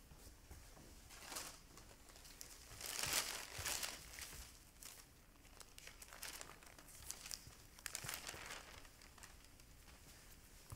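Paper rustling and crinkling as a sheet of paper is picked up and handled, in several bursts, the loudest about three seconds in.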